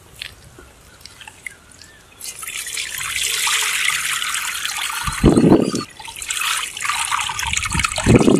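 Liquid clay slurry being scooped with a small pot and poured through a metal sieve into a pit of muddy water. After a couple of quieter seconds with a few small splashes, it becomes a steady splashing pour, with heavier splashes about five seconds in and near the end.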